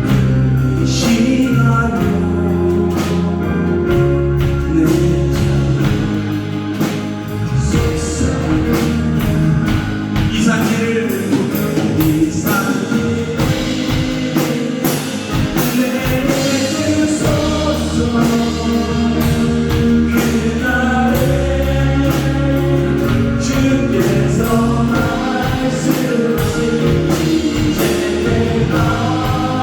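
Live praise band playing a Korean worship song with a drum kit, while singers and the congregation sing along.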